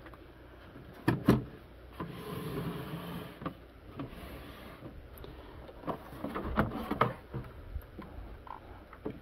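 Knocks and scraping from the plastic case of a Radio Shack TRS-80 Model 4P being handled and turned over. There is a loud double knock about a second in, then a scraping stretch, then a cluster of knocks around six to seven seconds as the computer is set down upright on a wooden desk.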